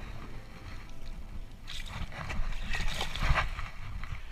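A carp splashing in shallow water as it is released, loudest in a flurry of splashes in the middle, over a steady low rumble of wind on the microphone.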